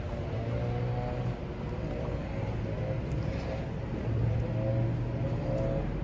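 Motor vehicle engine running with a low hum that swells twice, over outdoor street noise.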